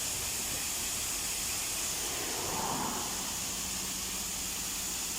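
Steady rushing hiss of water pouring down a man-made waterfall.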